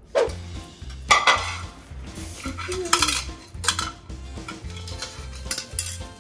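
A ceramic dog bowl clinking and scraping on a tile floor several times as two dogs nose and lick at it, over background music with a steady beat.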